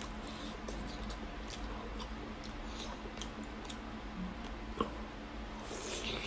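Close-miked chewing of braised pork belly, with small wet mouth clicks scattered throughout, and a crackly bite into a thick slice near the end.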